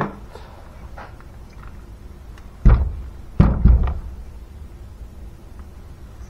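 Heavy dull thuds of a Simson moped engine being shifted and turned over on a wooden workbench: a light knock at the start, then three heavy knocks in quick succession a little under three seconds in.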